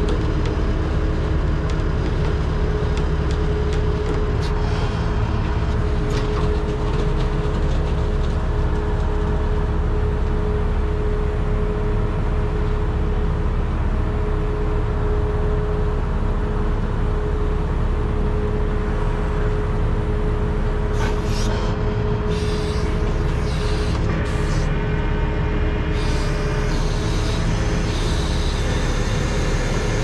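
Heavy diesel truck engine running at a steady speed with a steady whine, as the wrecker's winch holds the leaning concrete mixer truck on taut cables and pulls it upright. A few brief hisses come about two-thirds of the way in.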